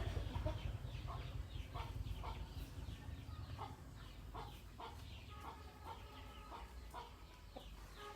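Chickens clucking and calling, many short calls overlapping, with a few longer held calls in the second half. A low rumble dies away over the first few seconds.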